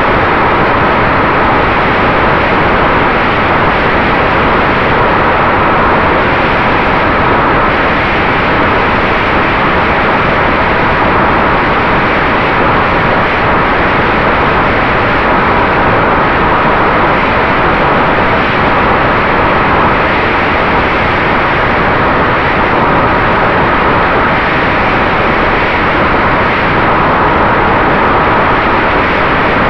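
RiteWing Mini Drak FPV flying wing in flight, heard from its onboard camera: a steady rush of airflow over the microphone mixed with the drone of its electric motor and propeller, with a faint steady whine.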